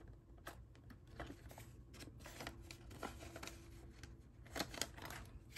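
Faint rustling and soft clicks of paper banknotes being slipped into a binder envelope and the binder page being turned, with a couple of louder rustles near the end.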